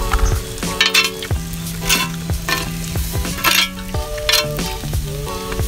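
A metal spoon scraping and stirring food on a cast-iron grill pan, about five short strokes, with the food sizzling. Background music with sustained notes plays underneath.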